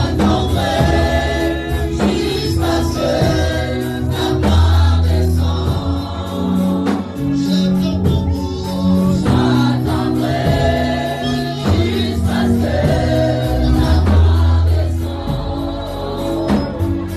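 Gospel worship music: a choir singing over bass and drums with a steady beat.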